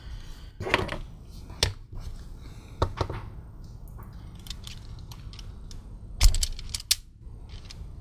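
Wire strippers snipping and stripping insulation off the ends of small wires: a few sharp clicks and snips, the loudest about six seconds in.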